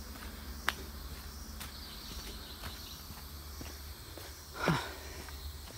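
Footsteps on dry leaf litter and bamboo-pole steps along a jungle trail: a sharp tick about a second in and a louder, heavier step near the end. Faint insects keep up a steady background hum.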